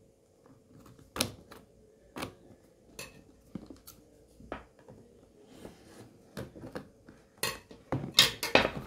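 Scissors cutting the seal on a cardboard tablet box, with the blades and box clicking and knocking against a glass tabletop: separate sharp clicks about once a second, then a quicker, louder run of knocks and rustles near the end.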